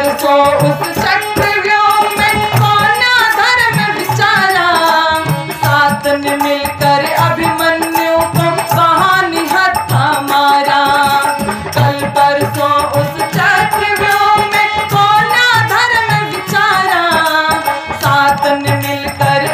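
A woman's voice singing a Hindi devotional bhajan, with harmonium and a dholak drum keeping a steady beat.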